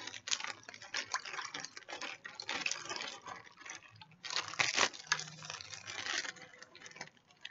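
Plastic zip-top gallon bag rustling and crackling as it is squeezed and tipped back and forth by hand, with the lumpy cornstarch-and-vinegar slurry inside squishing. The handling is irregular, with its loudest burst about four and a half seconds in.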